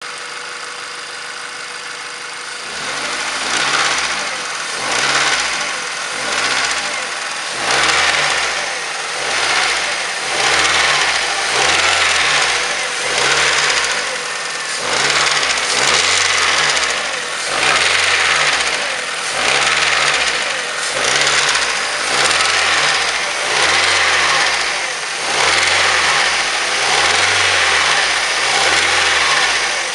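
Mazda 3's 1.6-litre engine idling steadily, then from about three seconds in revved in short repeated blips, roughly one every second and a bit. The engine has a knock, which is what the revving is meant to bring out.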